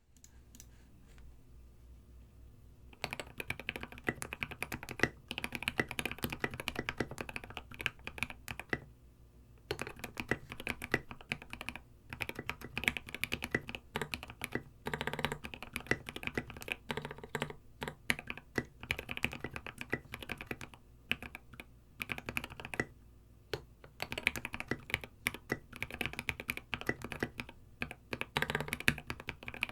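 Fast typing on a Space65 custom mechanical keyboard with lubed H1 switches, an aluminium plate and tall SA-profile ABS keycaps: a dense run of key clacks starting about three seconds in, in bursts broken by short pauses.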